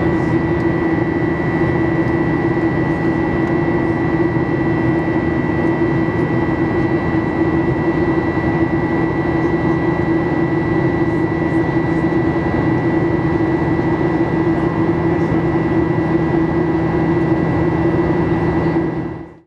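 Boeing 737-800's CFM56-7B turbofan engines heard from inside the cabin: a steady, even rush with a steady high whine and a lower hum, fading out quickly at the very end.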